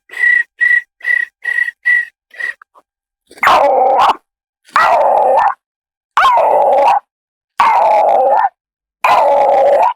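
Human vocal mimicry of kiwi calls: a quick run of about six short high chirps, then five long hoarse calls, each almost a second long and swooping down at its start, repeated at an even pace.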